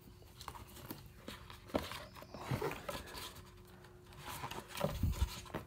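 Hardcover book being opened and its paper pages turned by hand: soft rustles and light page flaps, with a louder rustle and thump near the end.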